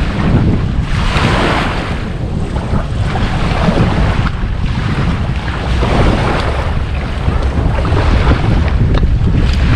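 Wind buffeting the microphone over small waves washing onto the beach, swelling and fading every two to three seconds.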